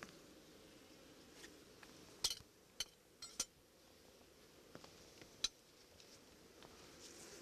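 Wooden beehive frames knocking and clicking against the hive box as they are moved apart: a cluster of sharp knocks a little past two seconds in, and one more about five and a half seconds in. Underneath runs the faint low hum of a strong honeybee colony.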